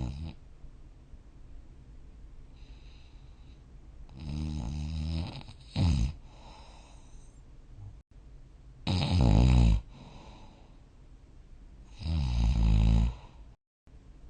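A sleeping person snoring: three loud, rough snores roughly every three to four seconds, one followed by a short sharp snort, with fainter breathing between them.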